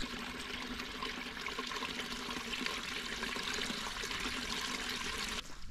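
Water of a small creek running steadily under a footbridge, an even rushing trickle that cuts off just before the end.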